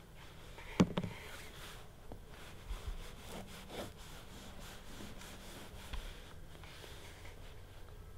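Kitchen knife sawing back and forth through a soft taillaule brioche loaf on a wooden cutting board, faint rasping strokes, with a sharp knock about a second in.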